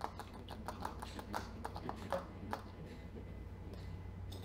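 Faint, quick light clicks and ticks, several a second, from hands working at a glass lab column and its fittings; they thin out after about two and a half seconds. A low steady hum runs underneath.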